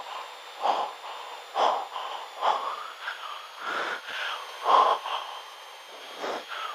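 A pilot's heavy breathing picked up by a headset microphone over the aircraft intercom, a loud breath about once a second.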